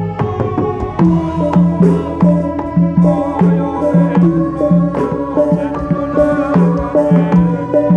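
Live Javanese folk-performance music: a drum beating a quick, even pattern with sharp percussion strokes over held melodic tones.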